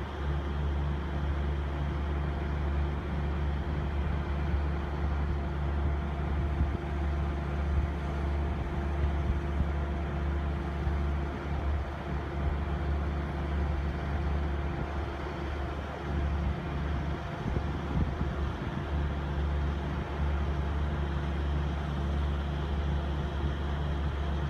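Steady low engine hum with a constant drone, unchanging throughout.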